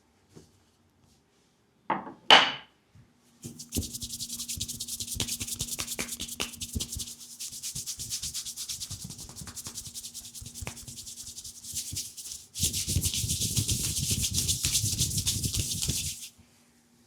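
Fast, continuous rubbing of massage strokes on the skin of the legs, a quick brushing hiss made of rapid repeated strokes. It gets louder and fuller after a short break about twelve seconds in, then stops near the end. A brief rising squeak, the loudest sound, comes about two seconds in, before the rubbing starts.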